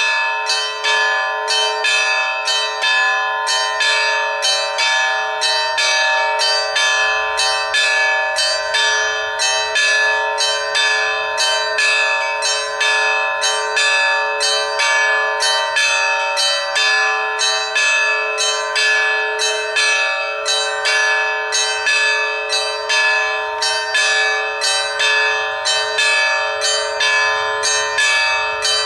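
Russian Orthodox church bells rung in a continuous peal: several bells struck over and over in a quick, steady rhythm, their tones ringing on together.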